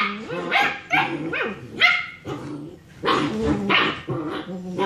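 Six-week-old German Shepherd puppies play-fighting, giving a quick series of short barks and yips, several a second, with a brief lull a little past halfway.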